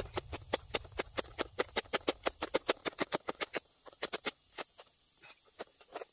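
Cleaver slicing a green pepper on a cutting board: quick, even knocks of the blade on the board, about five or six a second, thinning to a few scattered strokes after about three and a half seconds.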